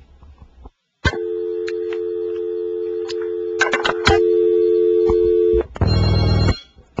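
Telephone dial tone, a steady two-note hum, with a few clicks partway through. It cuts off and the desk telephone then rings in two short buzzing bursts: an incoming call.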